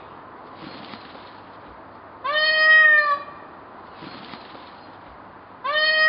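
Green peafowl (Java peacock) giving two loud calls about three and a half seconds apart. Each call is a single note just under a second long that swoops up at the start and then holds level. The second call is cut off at the end.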